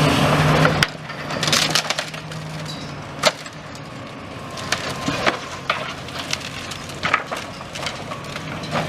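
Scattered sharp cracks and clatters of brick and concrete debris being broken and dropped during building demolition. A steady vehicle engine noise stops abruptly about a second in.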